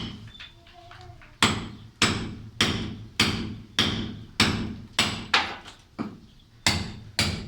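Hammer striking a steel chisel to chip away a concrete corner. The blows come steadily, about every 0.6 s, each with a short metallic ring, and start about a second and a half in.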